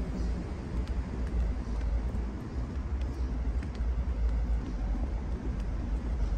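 Steady low outdoor rumble of street ambience, heard while walking along a residential street, with a few faint ticks.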